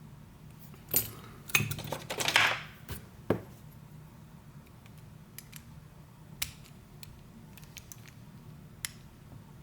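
Small metal tool clicking and scraping against an Abloy disc-detainer camlock while working its circlip loose: a cluster of sharp clicks and a scrape about a second in, then a few faint ticks.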